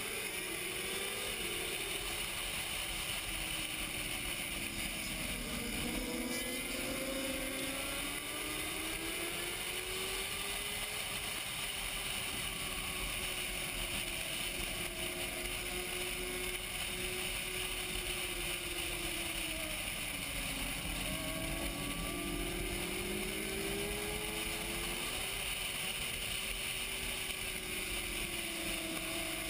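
Onboard sound of a racing sport motorcycle's engine, its pitch climbing and dropping again and again as the bike accelerates and slows through the corners. A steady rush of wind noise runs underneath.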